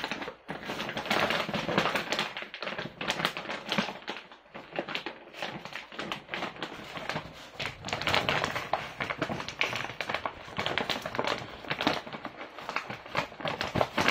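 Empty foil dog-food bag crinkling and crackling as a dog noses into it and paws it across a tile floor, a continuous rustle full of sharp crackles.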